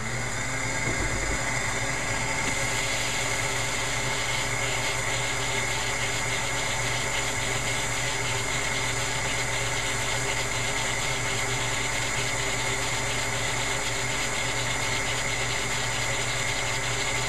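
A shop vac running steadily is the loudest sound. From about two seconds in a fast, faint ticking clatter joins it as the vac's suction drives a Lego-brick four-cylinder vacuum engine.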